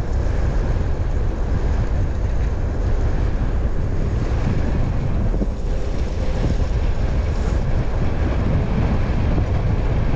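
Steady, loud wind buffeting on the camera microphone of a bicycle speeding downhill.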